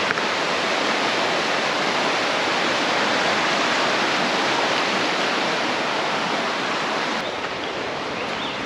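Steady rush of flowing water from a mountain stream, thinning out somewhat near the end.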